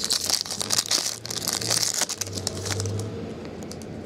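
Foil trading-card pack crinkling and crackling as it is torn open by hand. The crackle runs for about three seconds and then dies down.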